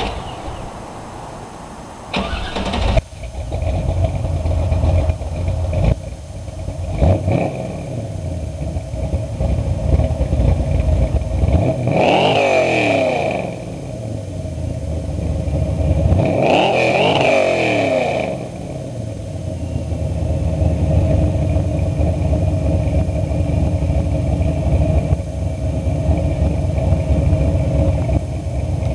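383 cubic-inch small-block Chevy V8 in a 1984 Camaro, breathing through Flowmaster 40 Series two-chamber mufflers on a dual exhaust. It idles with a few short throttle blips early on and two longer revs that climb and fall back to idle, about twelve and seventeen seconds in.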